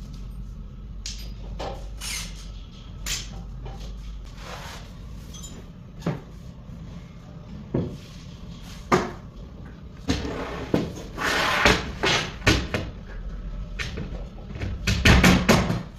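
Knocks and clatter of white IKEA Knoxhult cabinet panels being lifted, stood upright and fitted together on the floor. The sound comes as scattered short knocks, with a denser run of louder knocks near the end as the side panel goes against the upright panel.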